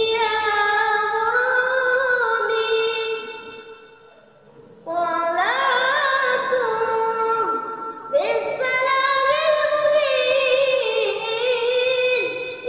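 A young boy singing sholawat, Islamic devotional praise of the Prophet, solo in long ornamented phrases that waver in pitch. He pauses for breath about four seconds in and breaks briefly near eight seconds.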